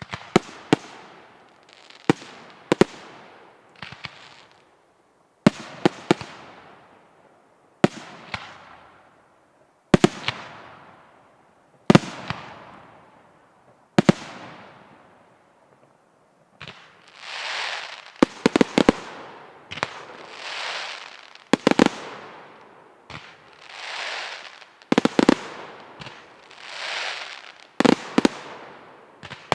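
Aerial firework shells bursting with sharp bangs about every two seconds, each followed by a fading crackling hiss. From about halfway, a rushing hiss swells up before each burst and the bangs come in quicker clusters.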